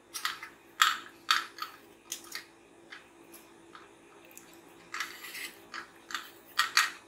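Idlis being prised out of an idli mould plate with a utensil: an irregular series of short scrapes and scratches, about ten in all, coming in a cluster around five to seven seconds in.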